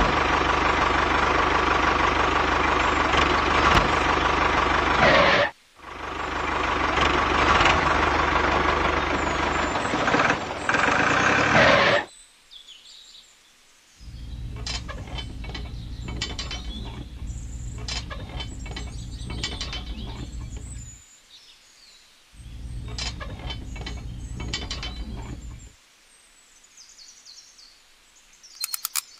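A loud, steady engine-like running sound for the red toy tractor, with one short break, for the first twelve seconds. After that a lower hum comes and goes, with small clicks and taps as the plastic cultivator is pinned to the tractor's rear hitch.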